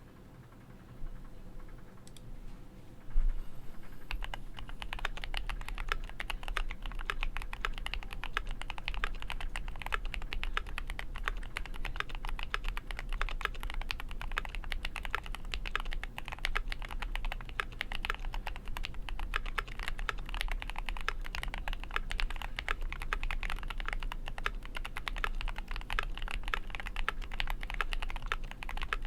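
Typing on a GMMK Pro mechanical keyboard with a brass plate, lubed and filmed Tecsee Diamond linear switches and ABS double-shot keycaps. A few scattered keystrokes come first, then rapid continuous typing from about three seconds in.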